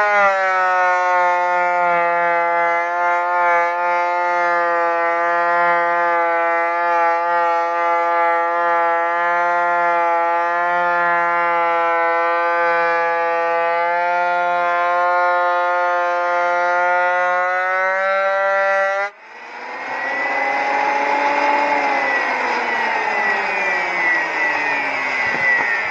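Delta 22-540 12-inch portable planer running under load as a board feeds through the cutterhead: a loud, steady whine whose pitch sags as the cut begins. About 19 seconds in, the sound breaks off abruptly. It then comes back, and the pitch falls steadily as the motor winds down.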